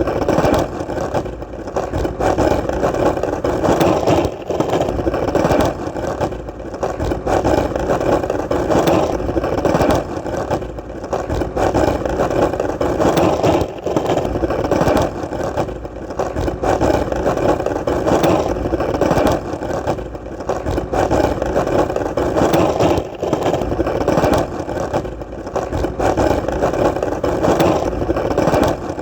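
Skateboard wheels rolling on hard ground: a continuous rough rumble that swells and eases every second or two.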